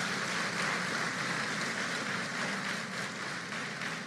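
Continuous din of a protesting crowd outside the hall, with many rapid overlapping bangs and knocks as the protesters pound on the doors and windows.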